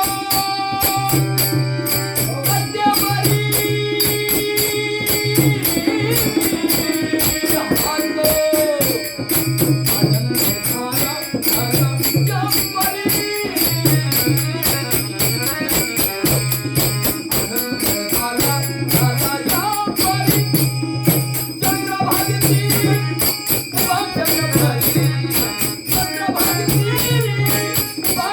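Instrumental interlude of a Marathi devotional song (abhang): a steady, fast beat of jingling percussion under held melody notes, with a low tone pulsing on and off about every two seconds.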